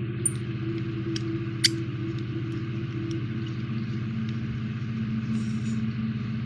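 Steady low hum of a small electric motor, its pitch dropping a little about halfway through, with a few light clicks and ticks over it.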